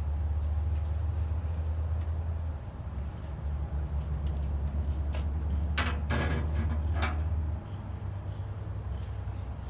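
Steady low outdoor rumble, with a short burst of clicks and clatter about six to seven seconds in as the replacement temperature probe and its mounting hardware are handled on the pellet grill.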